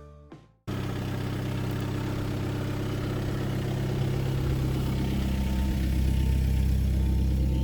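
The last plucked guitar notes fade out, then a cut to a car engine running steadily, most likely the Passat's 2.0-litre four-cylinder turbodiesel, slowly growing louder.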